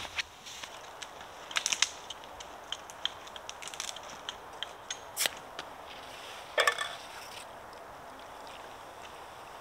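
Wood fire crackling, with irregular sharp pops and snaps and two louder bursts of them, about two seconds in and just before seven seconds in.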